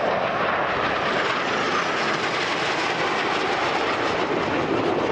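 Turbojet engines of a formation of Aermacchi MB-339 jets flying past, a steady jet noise without a break.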